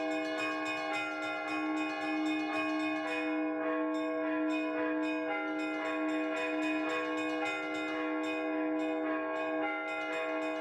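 Russian Orthodox church bells ringing for vespers: quick repeated strokes of the higher bells in a rhythmic pattern over a steady low ringing tone, all the bells sounding together.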